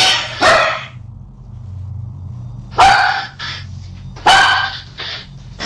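A dog barking in three quick double barks, a couple of seconds apart.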